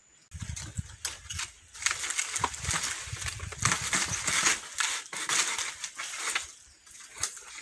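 Dry coconut palm fronds and husks rustling, crackling and snapping as green coconuts are twisted and pulled from the bunch by hand. It starts suddenly just after the beginning and dies down near the end.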